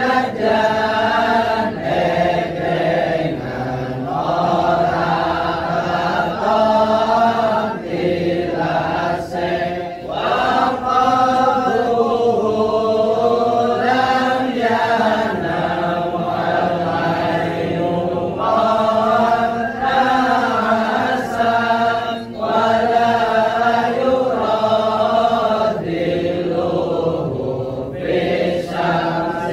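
A group of men chanting together in Islamic devotional chant, many voices in unison holding a melodic line. The chanting goes on in long phrases with short breaks between them.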